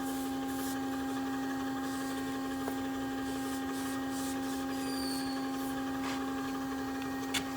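Steady electric hum of the Amada band saw's hydraulic pump motor running at idle, with a few light scuffs and a sharp click near the end.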